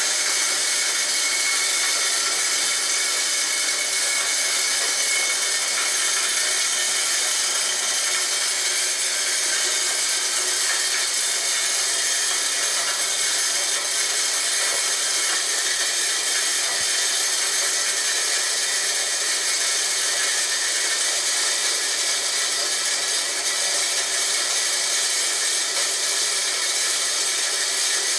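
Homemade corn grinder built from a water pump, running steadily with a continuous, mostly high-pitched grinding noise.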